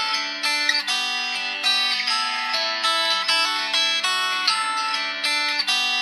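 An LG G6 ringtone playing from the phone's speaker: a continuous melody of plucked guitar notes.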